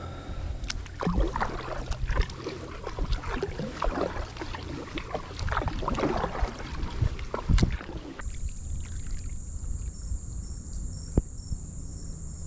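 Kayak paddle strokes splashing and dripping water, irregular, stopping about eight seconds in. After that it is quieter, with a thin steady high whine.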